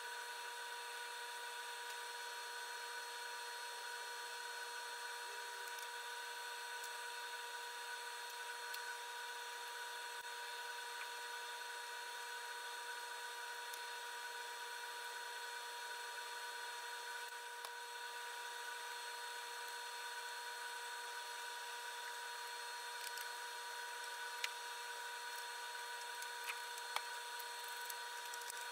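Steady whine of running shop machinery, a motor holding one pitch with several overtones over a hiss, with a few light clicks near the end.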